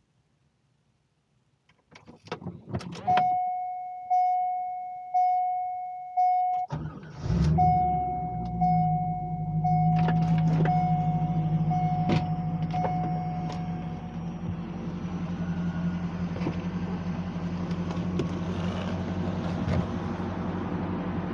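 Keys clicking at the ignition, then a dashboard warning chime sounding about once a second. About seven seconds in, the 1997 Corvette C5's LS1 V8 cranks, catches and settles into a steady idle, with the chime repeating a few more times over it.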